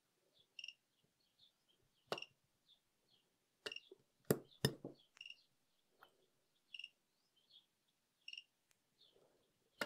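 Sharp snaps of a budget PCB battery spot welder firing triple-pulse welds through 0.15 mm nickel strip as the probes are pressed down: a single snap, then three in quick succession near the middle, and one more at the end.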